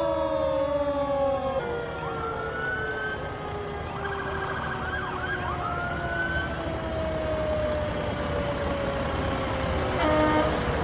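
Emergency-vehicle sirens wailing, several at once, with long slowly falling wails and a fast warbling yelp partway through. A short horn blast comes near the end.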